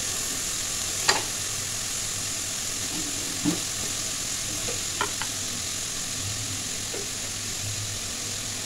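Sliced beans, carrots and green peas frying in oil in a metal kadai: a steady sizzle, stirred with a wooden spatula, with a few sharp knocks, the loudest about a second in.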